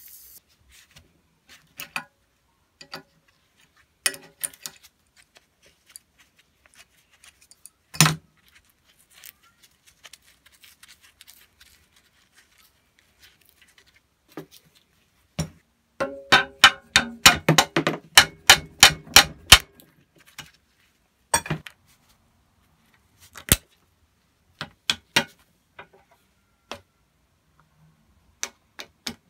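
Metal tools working on a rusty steel bolt cutter: scattered clinks and knocks. Midway comes a quick run of ringing metal-on-metal strikes, about four a second for three or four seconds, then a few single knocks.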